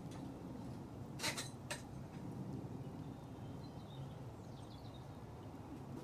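Two sharp clinks from the crucible lifting tongs at a home-made metal-melting furnace, about a second in, over a steady low hum; a bird chirps faintly later on.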